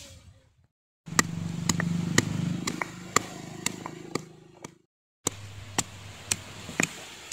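Stone pestle pounding in a stone mortar: sharp knocks about two a second. A steady low hum sits under them for the first few seconds, and there are two brief silent gaps.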